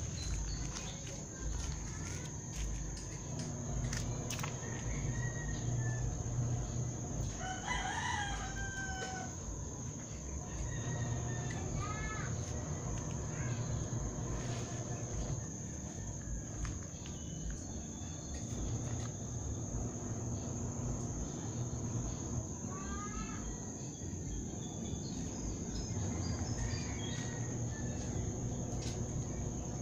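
A rooster crows once about eight seconds in, with shorter bird calls later, over a steady high-pitched insect drone.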